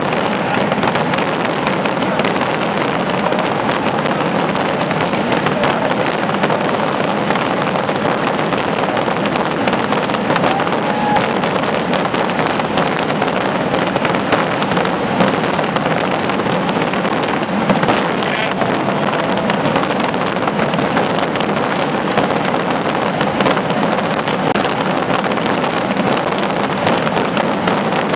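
A massive rocket barrage (the Descarga of Cangas del Narcea) bursting overhead: countless voladores going off in an unbroken stream of bangs and crackles, with no pause.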